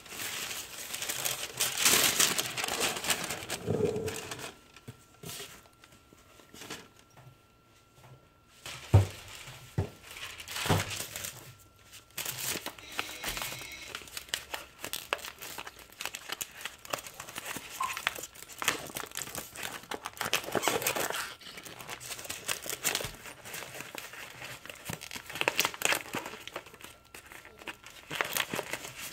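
Plastic bag and paper packaging crinkling and rustling in irregular bursts as gloved hands handle them, with a sharp thump about nine seconds in.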